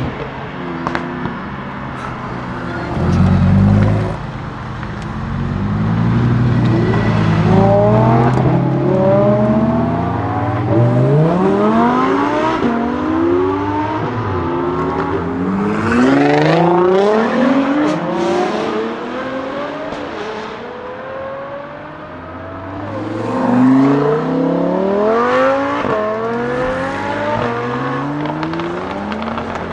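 Lamborghini Huracán STO's naturally aspirated V10 accelerating hard, its revs climbing in quick steps through several upshifts. The car eases off twice along the way, then builds up through the gears again.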